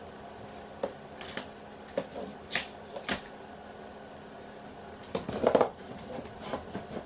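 A string of short clicks and knocks from someone rummaging in a TV cabinet, handling cabinet doors and plastic movie cases. The loudest, busiest clatter comes about five seconds in.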